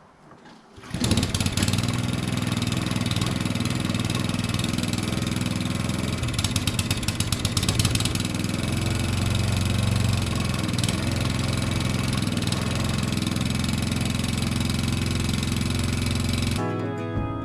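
Suffolk Punch petrol cylinder (reel) lawnmower engine running steadily. It cuts in abruptly about a second in and stops suddenly near the end, where acoustic guitar music takes over.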